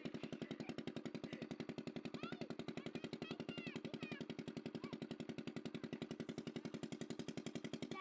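A small engine running steadily with a rapid, even knock of about a dozen beats a second.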